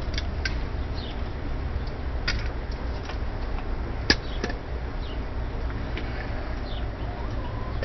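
A few scattered sharp taps or clicks, the loudest about four seconds in, over a steady low rumble, with faint bird chirps now and then.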